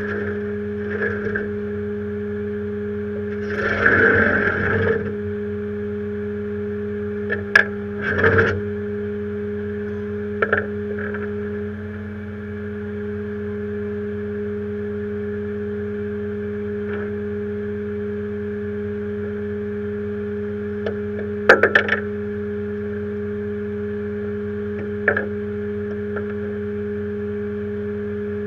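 Rollback tow truck's engine running with a steady hum, overlaid by a few short metallic clanks and knocks of chains and hooks being handled at the tail of the bed, with a longer scraping burst about four seconds in.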